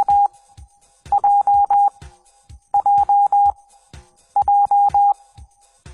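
Morse code (CW) practice tone keying the letter J (dit dah dah dah) over and over. It comes as short groups of beeps on one steady pitch, about every 1.6 seconds, with the first group already under way.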